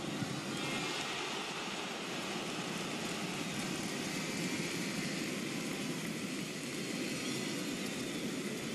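Football stadium crowd noise: a steady, even wash of many voices with no single voice or event standing out.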